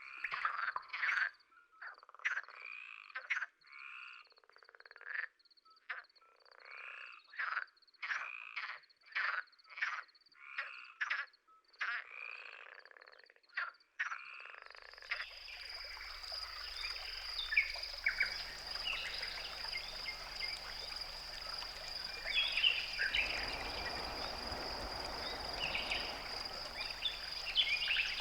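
Repeated harsh croaking calls, roughly one a second, over a faint steady high-pitched trill; about halfway through the calls stop and give way to a steady high whine and low hum with scattered faint chirps.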